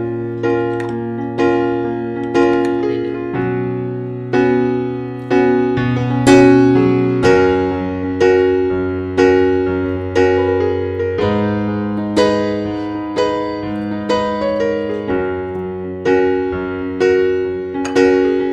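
Background piano music: single notes and chords struck about once or twice a second, each fading away, over long held bass notes.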